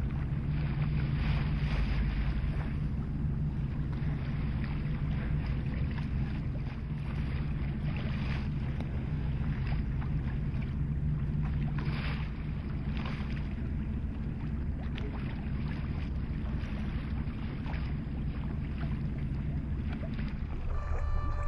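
Boat engine running steadily with a low, even hum, under a haze of wind and water noise.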